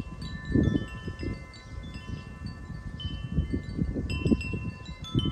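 Wind chimes ringing, with several clear metallic tones struck one after another that each ring on, over a low, uneven rumble.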